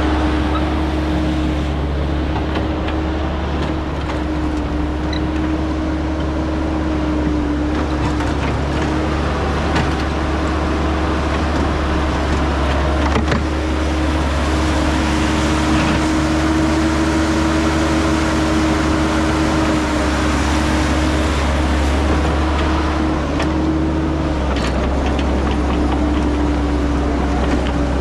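Caterpillar 312 tracked excavator's diesel engine running steadily under work, with a steady droning tone that wavers slightly in pitch and a couple of sharp knocks from the machine.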